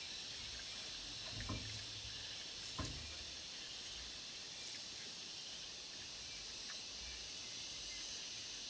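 Faint, steady high hiss of insects in the surrounding forest, with two soft knocks about one and a half and three seconds in.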